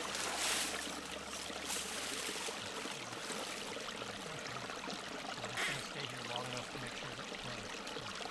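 Small spring-fed stream trickling steadily.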